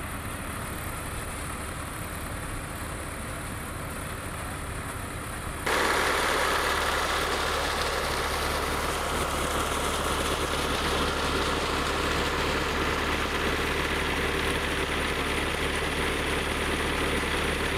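Engine running steadily with a low hum, jumping suddenly louder about six seconds in.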